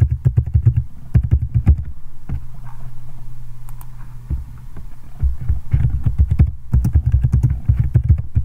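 Typing on a computer keyboard in two quick runs of keystrokes, with a pause of about three seconds between them.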